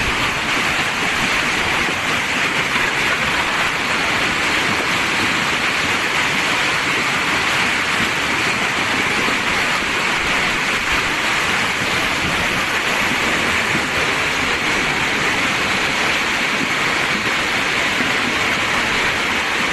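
Steady, loud rush of storm water, even and unbroken throughout.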